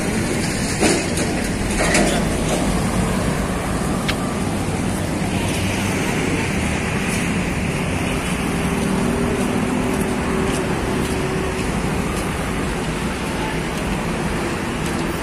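Steady motor-vehicle and traffic noise, running on without a break, with a faint steady engine hum in the middle and a few light clicks early on.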